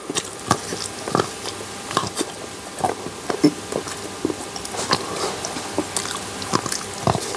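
Close-miked chewing of a chocolate bar: irregular mouth clicks, a couple every second.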